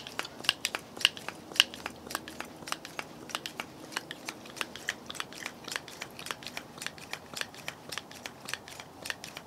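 Hand pump on an MSR white-gas fuel bottle being pumped to pressurise the bottle for the stove, each plunger stroke giving a short click, about three a second.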